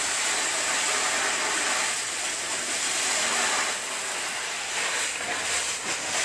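Steady hiss of water spraying from fire hoses onto a burned-out house.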